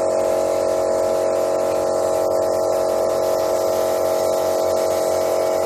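Air compressor for a pneumatic nail gun running with a steady, even hum.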